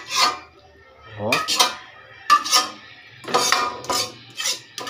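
Large metal spoon scraping and clinking against a metal cooking pan, scooping up thick caldereta sauce in a series of short strokes.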